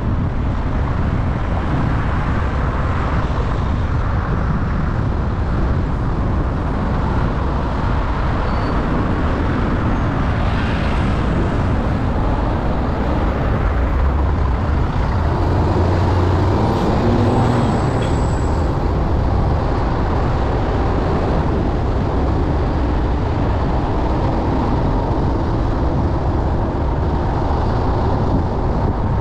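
Car driving in traffic: steady low road and engine rumble with surrounding traffic noise, swelling a little about halfway through.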